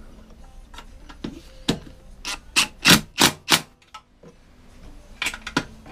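Hand ratchet driver clicking as the bolts on a lawnmower's recoil starter housing are snugged up. Scattered clicks, with a louder run of about five sharp clicks, roughly three a second, in the middle and a few more near the end.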